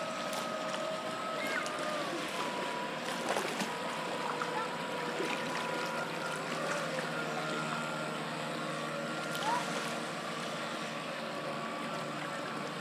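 Boat motor whine holding steady and shifting in pitch now and then, over a wash of water and wind noise.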